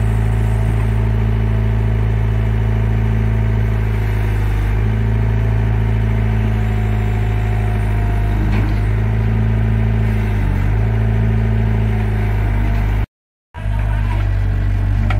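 Hitachi hydraulic excavator's diesel engine running steadily. The sound drops out for a moment near the end, then the engine continues.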